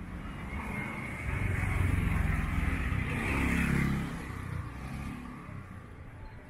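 A motor vehicle passing close by in the street: its engine grows louder from about a second in, peaks for a couple of seconds, then fades away.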